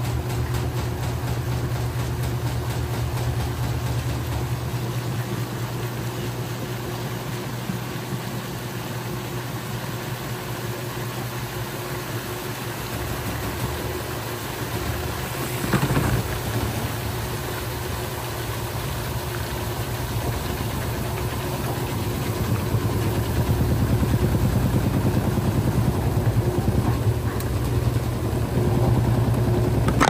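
Electrolux Top8 (LE08) washing machine in its spin cycle: a steady motor and drum hum with rattling. The noise comes from the tub ring not being seated and a loose valve shaking. There is a brief louder surge about halfway through, and the sound grows louder over the last third.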